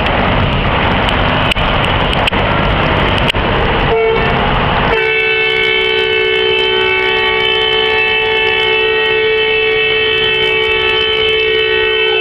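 A loud rushing noise for the first four seconds or so, then a vehicle horn held down from about five seconds in, sounding one steady two-note chord without a break.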